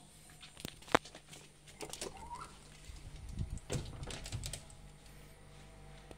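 Glass shop door with a metal frame being pulled open and let swing shut. A sharp click of the handle or latch comes about a second in, a brief rising squeak about two seconds in, then a run of low thumps and clicks as the door closes and is stepped through.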